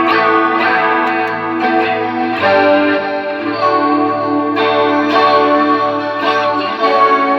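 Electric guitar played through a Line 6 Helix LT multi-effects processor: sustained, effected chords that change every second or so. The unit is passing sound again after its water-damaged boards were cleaned.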